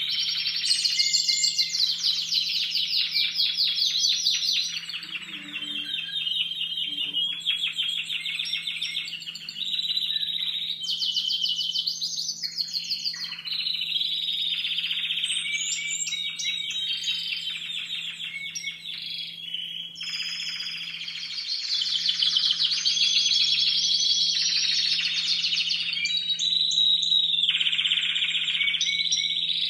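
Young Timbrado Español canaries singing together from their training cages: fast rolling trills and repeated-note phrases that change every few seconds, with only brief dips. Their repertoire is not yet fully formed at this stage of training.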